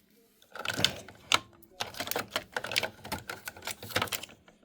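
Rapid clatter of small hard objects being picked up, handled and set down: a dense run of sharp clicks and knocks, starting about half a second in and stopping shortly before the end.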